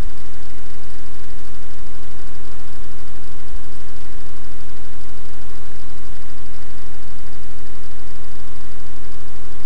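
Vehicle engine idling, a loud, unchanging drone heard through the dashcam and overloading its recording.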